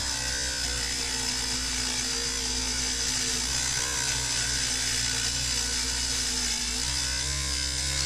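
Dremel rotary tool running at higher speed, its bit grinding into a plastic action-figure part. It gives a steady whine that dips slightly in pitch a couple of times as the bit bites.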